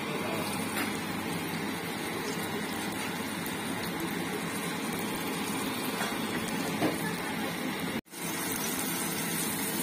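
Floured chicken pieces sizzling as they deep-fry in hot oil in a stainless steel pot: a steady, even sizzle that cuts out briefly about eight seconds in.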